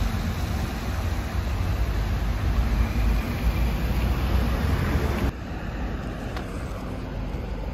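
Street traffic: city buses and cars running past in a steady rumble. About five seconds in it cuts abruptly to quieter street traffic.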